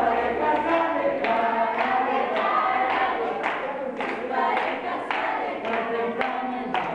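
A group of children singing together in unison, with claps keeping time about twice a second.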